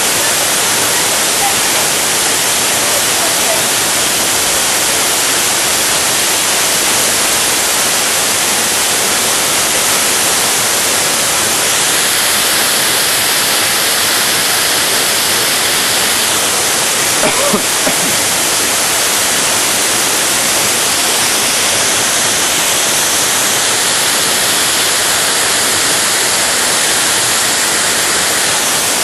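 Close-up waterfall: a loud, steady rush of falling water crashing onto rock and pool.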